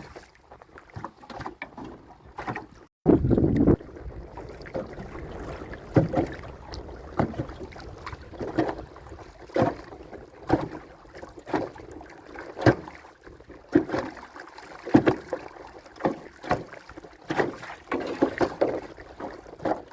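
Knocks and water sounds from a small boat about once a second, typical of a trap line being hauled in hand over hand. A loud low rumble lasts about a second, around three seconds in.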